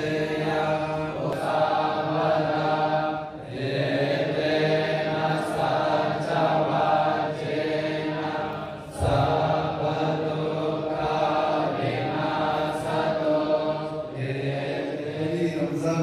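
A devotional prayer chanted on a near-steady low pitch, with short breaks for breath about three seconds in and again about nine seconds in.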